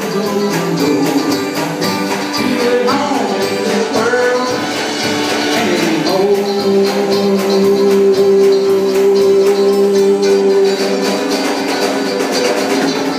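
Small live band playing a song on acoustic guitar, mandolin and drum kit, with a man singing at the microphone. About six seconds in, one note is held for several seconds over quick, even strumming.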